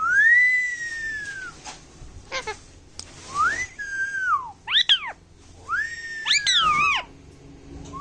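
Indian ringneck parrot whistling: a run of whistled notes that rise and fall in pitch, with a few quick up-and-down sweeps in the middle and a long whistle near the end.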